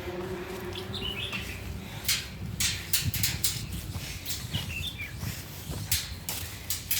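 Footsteps on a path, starting about two seconds in at a few steps a second, with short bird chirps twice.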